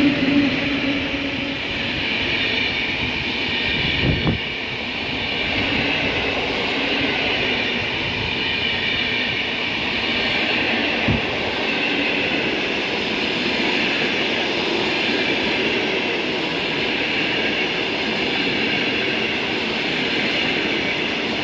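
Passenger train hauled by an EP07 electric locomotive passing by, a steady rolling rumble of wheels on rails. The tail of the train horn dies away in the first second, and two short thumps come through about four and eleven seconds in.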